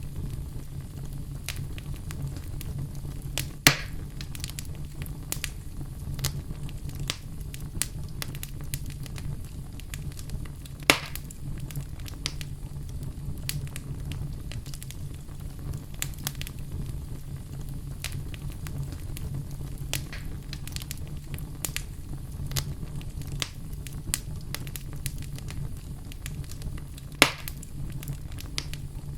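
Fireplace fire burning: a steady low rumble with frequent small crackles, and three loud sharp pops, about 4, 11 and 27 seconds in.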